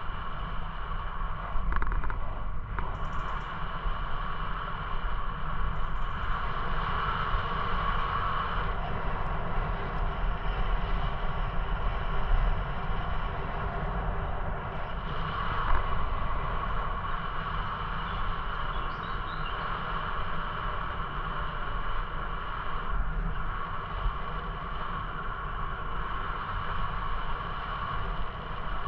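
Steady tyre rumble and wind noise on the camera's microphone while riding along a paved path, with a few brief knocks and rattles.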